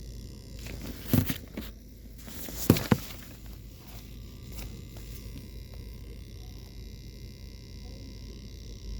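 Steady low hum on the driver's side of a car, the whirring noise being checked. Two loud clusters of knocks and rustles come about a second in and near three seconds in.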